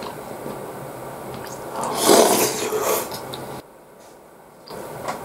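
Close-up eating sounds of a man eating beef stew: faint mouth clicks, then a loud noisy rush lasting about a second, about two seconds in.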